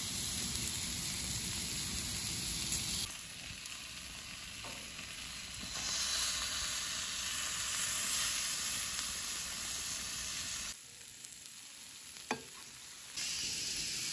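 Marinated chicken and mushrooms sizzling on a barbecue grill, the sizzle changing in loudness at several cuts, with one sharp tap a little before the end. At the very end, onions and green peppers are frying in a pan.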